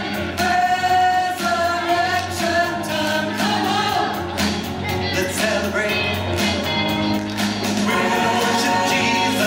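A song with voices singing over a band backing track with a steady beat.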